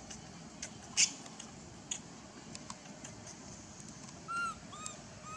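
Dry leaves and twigs crackling and snapping as a baby macaque handles a stick on the forest floor, with one sharp crack about a second in. Near the end come three short calls, each rising then falling in pitch.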